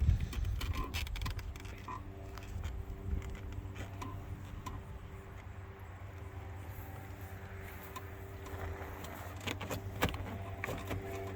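Small metallic clicks, taps and rattles of screws, tools and door parts being handled, over a steady low hum.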